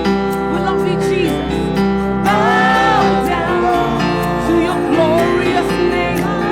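Slow live worship-band music: sustained chords held under a voice singing a wavering melody line without clear words.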